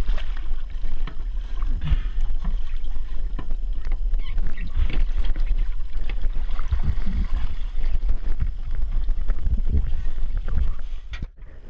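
Seawater splashing and slapping around a boat's stern as a diver hauls himself out of the water and aboard, with scattered knocks and bumps against the hull and a steady low rumble of wind on the microphone. It cuts off suddenly near the end.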